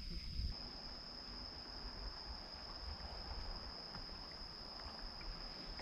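Faint, steady high-pitched trilling of night insects, such as crickets, over a low background hiss.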